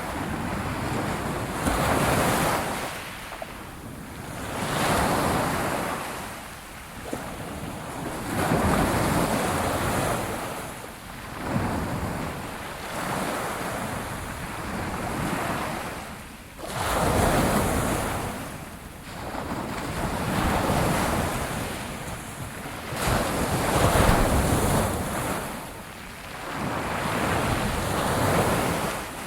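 Ocean waves breaking and washing up on a shore, surging and receding every few seconds, with wind noise.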